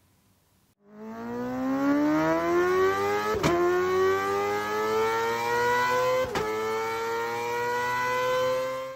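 Vehicle engine accelerating, its pitch rising steadily for several seconds, with two sharp cracks about three seconds apart, then cutting off suddenly.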